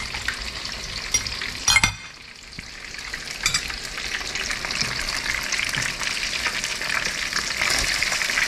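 Battered striper pieces frying in hot oil: a steady, dense crackling sizzle. A sharp knock comes a little under two seconds in, the sizzle drops briefly after it, and then it builds back up.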